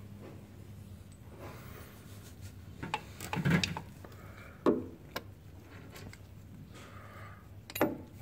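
Scattered metallic clinks and knocks of a wrench and the old brake proportioning valve being worked loose and lifted off its mounting bracket. The loudest knocks come about halfway through and again near the end, over a steady low hum.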